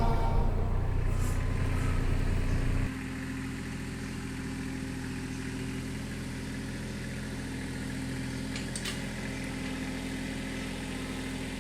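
Kubota L2800 subcompact tractor's diesel engine idling steadily. Background music runs over it for the first three seconds and then cuts off.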